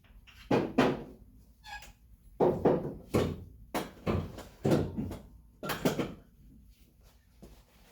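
Irregular metal clunks and knocks, about a dozen over several seconds, as a starter motor is worked into place against the transmission bellhousing ready for bolting up.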